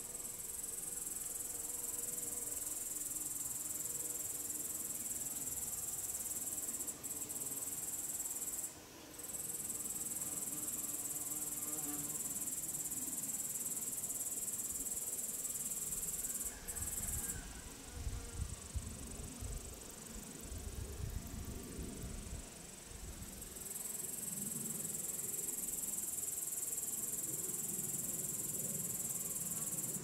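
Meadow insects stridulating in the grass: a continuous high-pitched shrill that breaks off briefly twice in the first third. Around the middle a low rumble comes in for several seconds while the shrill weakens, then the shrill returns at full strength.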